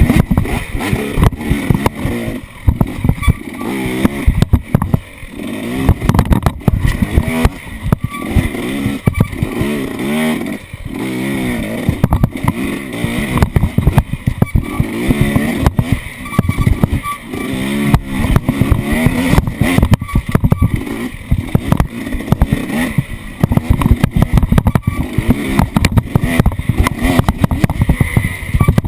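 Off-road vehicle engine running and revving up and down again and again, with a constant rough clatter and knocking throughout.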